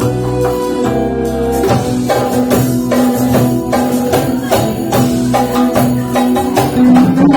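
Band music at a sound check: sustained melody notes over a steady percussion beat of about two hits a second, which sets in about two seconds in.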